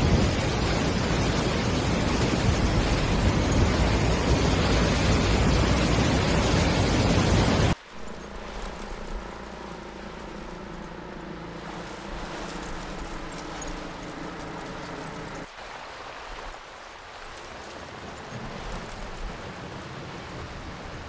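Loud, steady rushing of a muddy river in flood, which cuts off suddenly after about eight seconds. It gives way to a much quieter, steady drone made of several held tones, which fits the distant helicopter then in view, and a faint outdoor background after that.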